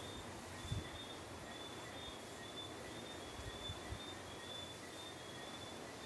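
Faint night-time chorus of calling insects: a high, steady, pulsing trill with a fainter lower tone beneath it, and a couple of soft low bumps, one just under a second in and another near four seconds.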